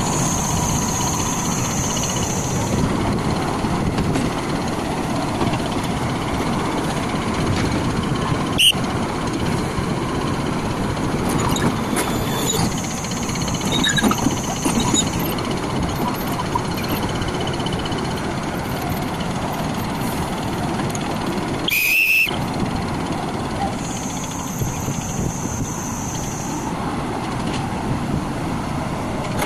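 Diesel engine of a Tata Hitachi crawler excavator running steadily under load while it works its boom and tracks. A high hiss comes and goes three times for a few seconds each. There is one sharp knock about a third of the way in and a brief high squeal about three-quarters of the way through.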